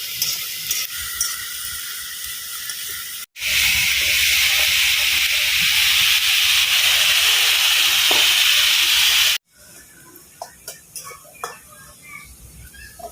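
Food sizzling as it fries in a pan, with small clicks of stirring. About three seconds in, a much louder, steady sizzle takes over for about six seconds, then cuts off suddenly to a quieter stretch with scattered clicks.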